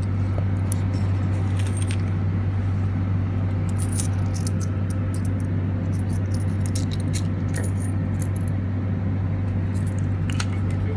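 Steady low hum inside a ZET public-transport vehicle, with frequent light metallic clinks and jingles scattered through it.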